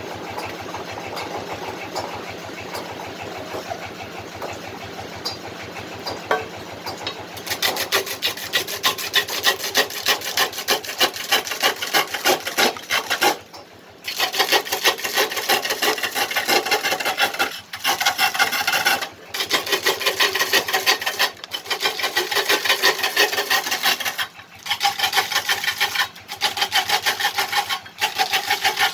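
Wood lathe running, then from about seven seconds in a turning tool cutting the spinning fruit-wood body of a kendang drum: a harsh, rapidly pulsing scraping. It breaks off briefly several times as the tool is lifted from the wood.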